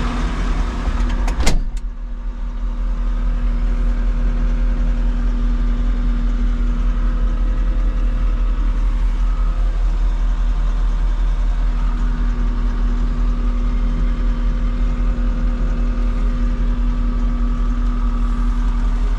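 Caterpillar C2.2 turbo diesel engine of a Cat 226D3 skid steer running at a steady speed, with a few sharp clicks or knocks about a second and a half in, after which the engine grows somewhat louder and holds steady.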